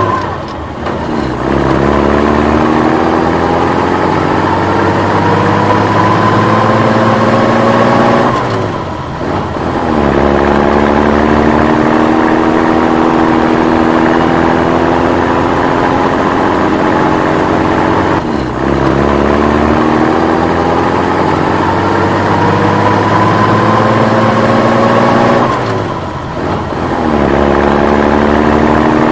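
Old military truck's engine pulling the truck along, its pitch climbing slowly as it gathers speed in each gear. It drops briefly three times as the driver shifts up, then climbs again from lower revs, and runs evenly near the end.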